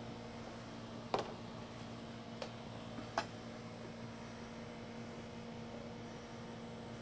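Low steady electrical hum with three light clicks, the first and loudest about a second in, two fainter ones a second or two later.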